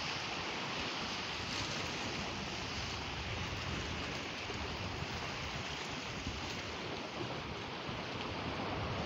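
Sea waves washing against a rocky shore, a steady rushing, with wind buffeting the microphone.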